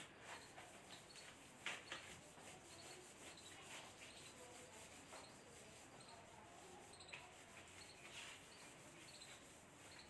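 Faint, irregular rubbing strokes of a hand-held duster wiping marker writing off a whiteboard.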